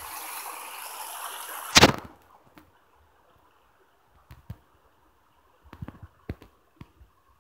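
Shallow creek water running over stones, cut off by one loud sharp knock about two seconds in. After that there are only scattered light knocks of footsteps on loose river stones.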